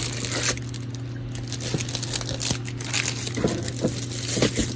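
Packaging being handled: crinkling and rustling with scattered small clicks and taps, over a steady low hum.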